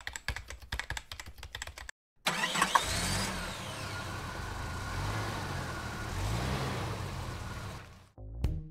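About two seconds of rapid clicking, then a brief gap. After the gap, a car engine sound effect starts up and runs, its revs rising and falling a few times, and it fades out near the end.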